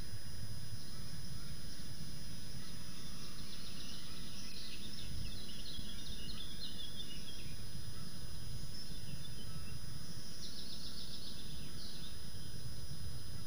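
Steady low rumble of background noise with small birds singing over it: a run of chirps about four seconds in and a quick trill about ten seconds in. A thin, steady high whine runs beneath.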